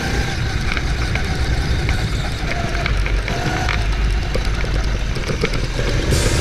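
Go-kart driven at speed, heard from an action camera worn by the driver: a steady rumble of wind buffeting the microphone and the kart running, with scattered rattles and clicks.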